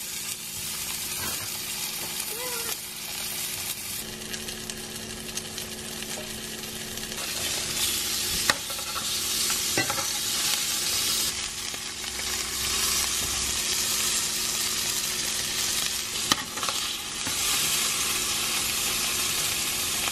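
Beef sirloin steaks sizzling as they sear in ghee in a stainless-steel frying pan, getting louder about seven seconds in. A few sharp clicks of metal tongs against the pan come as the pieces are turned.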